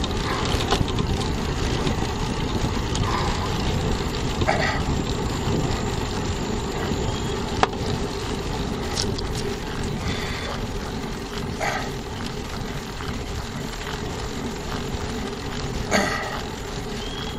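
Steady wind rush and road noise on the microphone of a moving bicycle's handlebar camera, heaviest in the low end. A handful of short, sharp calls break through now and then, the loudest near the end.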